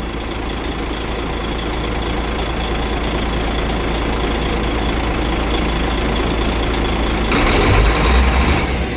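DAF truck's six-cylinder diesel engine running steadily at raised revs with the accelerator held down for a diagnostic cylinder test. A loud hiss lasting about a second and a half breaks in near the end.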